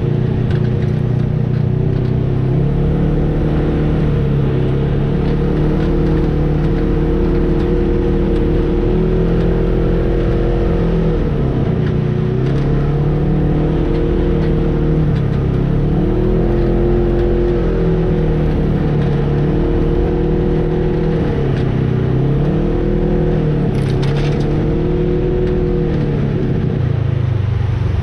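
An off-road vehicle's engine running under changing throttle, its pitch rising and falling every few seconds as it works along the trail.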